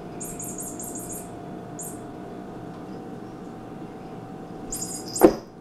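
A kitten playing with a toy mouse on a wooden floor: a quick run of about six short, high, scratchy clicks in the first second or so, another about two seconds in, then more just before a sharp knock near the end.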